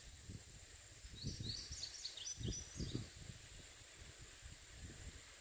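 A songbird sings a short run of quick, high, down-slurred chirps about a second in, over a steady high hiss from the surroundings. A few low thumps come midway, the loudest moments.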